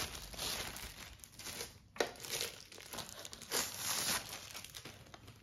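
Clear plastic packaging film crinkling and rustling as the plastic-wrapped parts of a standing fan are handled, with a sharp click about two seconds in and a few lighter knocks after it.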